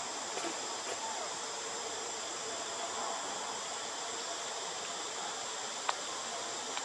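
Steady high-pitched chorus of insects, an even unbroken drone, with one sharp click about six seconds in.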